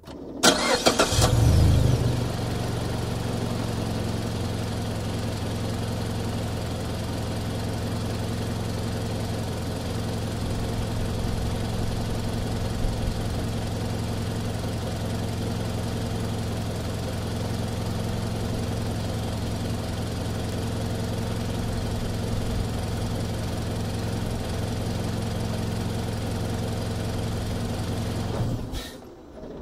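Mazda CX-5 engine heard from outside at the front. The starter cranks and the engine catches with a brief flare in revs, then settles into a steady idle. Near the end it is switched off and dies away.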